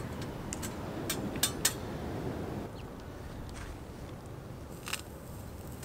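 A few sharp metal clicks and clinks from handling a small folding steel camp stove and its slotted grill plate: four close together in the first two seconds and one more near the end. Under them is a low rumble that drops away about two and a half seconds in.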